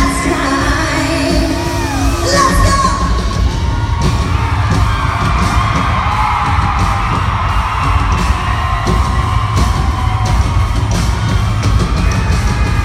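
Live country-pop band playing loudly with heavy drums and bass while a woman sings the lead, with yells and whoops from the crowd over it.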